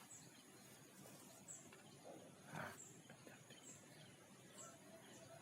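Near silence, with a faint high chirp repeating about once a second, typical of a small animal calling outdoors. A slightly louder, short rustle or burst comes about two and a half seconds in.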